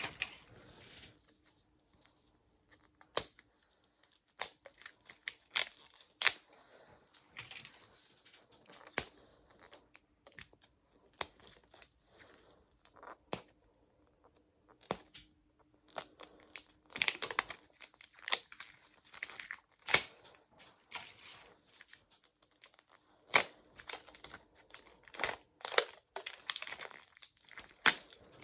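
Small plastic-wrapped Mini Brands miniatures being torn and crinkled open by hand: irregular sharp crackles and rips with short pauses between them.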